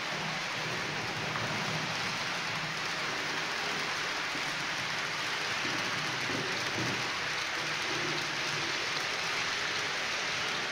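H0 scale model freight train of tank wagons rolling along the layout's track: a steady rushing noise from the wheels on the rails, with a low hum that comes and goes.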